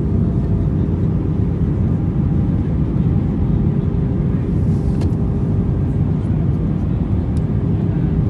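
Steady cabin noise of an Airbus A320-family jet airliner on descent, heard from inside at a window seat: the engines and the air rushing past make an even low drone with a faint steady hum above it.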